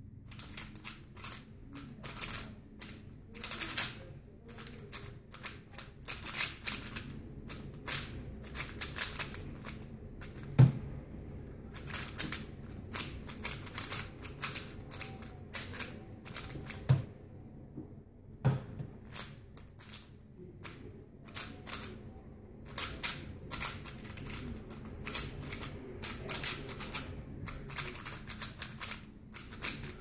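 A 3x3 speed cube being turned fast by hand, giving dense runs of plastic clicking and clacking. A few dull thumps fall about ten seconds in and twice more around seventeen to eighteen seconds in, as a hand strikes the laptop keyboard to stop and start the solve timer.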